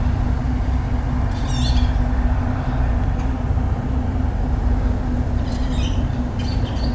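Birds calling: a quick series of high chirps about a second and a half in and again near the end, over a steady low rumble.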